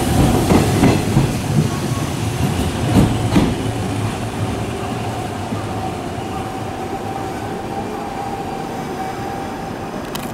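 Hanshin Railway electric train running along the platform, its wheels clacking over rail joints in pairs, with a steady motor whine. The rumble and clacking fade as the train pulls away.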